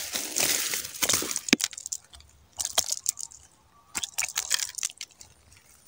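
Grass and reeds rustling and crackling as they are pushed through, in irregular bursts: a hiss of rustle at first, then scattered crackles and snaps.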